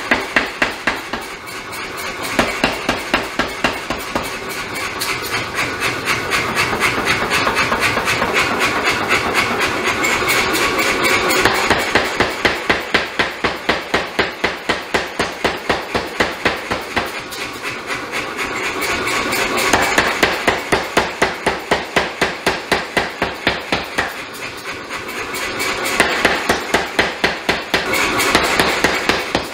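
Power hammer forging a red-hot damascus steel chef's knife blade, striking in fast, even blows several times a second. The blows come in runs that ease off and pick up again every few seconds.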